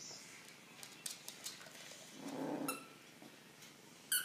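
Coton de Tulear dogs play-fighting over a plush toy: a short low growl about two seconds in, a few light clicks before it, and a brief high squeak near the end.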